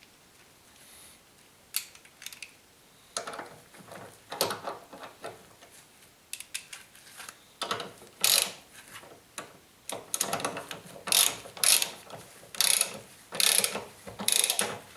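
Socket ratchet wrench clicking in short bursts as the 17 mm control-arm bushing bolts are run in and nipped up. The strokes get louder and come closer together from about eight seconds in.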